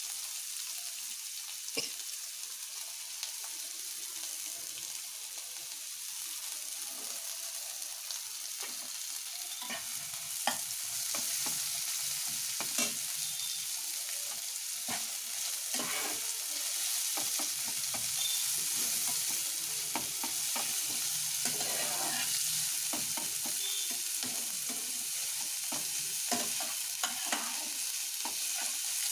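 Chopped onion and green chilli sizzling in hot oil in a pan, with a spatula stirring and clicking against the pan now and then. The sizzle grows louder about ten seconds in.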